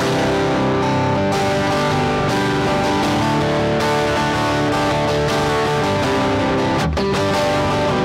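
Fender Stratocaster electric guitar strumming chords through a Marshall Jackhammer distortion pedal, with an overdriven rock tone. The chords ring on steadily, with a short break about seven seconds in before playing resumes.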